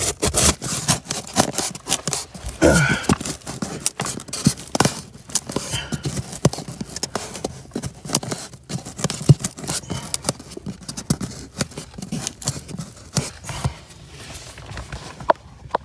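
Irregular scraping, rubbing and clicking as a rigid foam insulation board is pushed into a rim joist bay and fiberglass insulation is handled around it. The sounds thin out near the end, with one sharp click.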